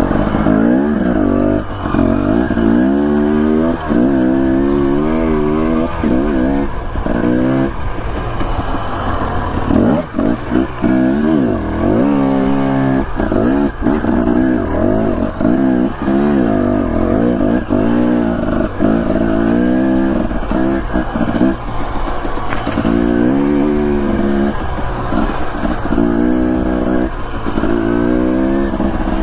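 Dirt bike engine revving up and down over and over as it is ridden along a rough trail, the pitch climbing and falling every second or so with brief drops as the throttle comes off.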